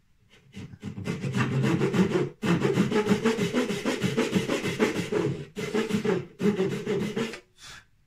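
Hand saw cutting down into a wooden glazing bar held upright in a vise to form a tenon: a quick run of saw strokes, broken by short pauses about two and a half, five and a half and six and a half seconds in, stopping just before the end.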